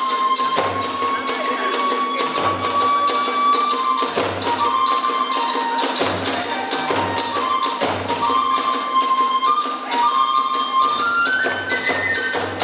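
Kagura hayashi ensemble: a bamboo flute playing a held, slowly wavering melody that steps up in pitch near the end, over a regular taiko drum beat and sharp strokes of small hand cymbals.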